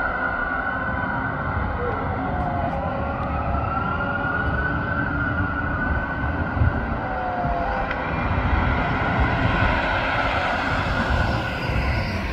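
Siren of a 2019 Spartan Metro Star fire engine responding to a call, heard from a distance and wailing in slow rises and falls over steady road traffic noise.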